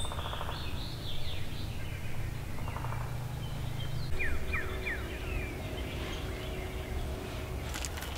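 Songbirds calling in woodland: scattered short chirps, with three quick downward-slurred whistles about four seconds in, over a steady low rumble.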